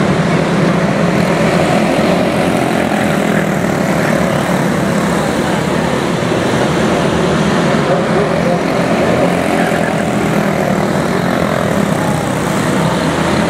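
Several quarter midget race cars with single-cylinder Briggs & Stratton Animal engines running together in a race, a steady, continuous buzz of small engines.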